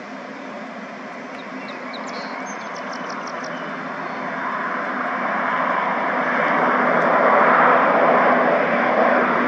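Aircraft engines growing steadily louder as an airplane approaches, a broad rushing engine noise over a low steady hum.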